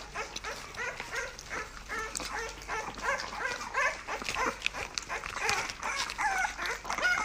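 A young puppy making a quick run of short, high whimpering squeaks, about three a second.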